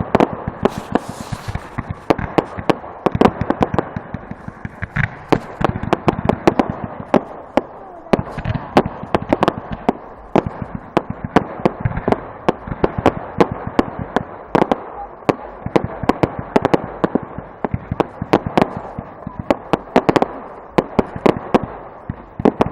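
Fireworks going off in a rapid, continuous barrage of sharp bangs and crackles, several a second.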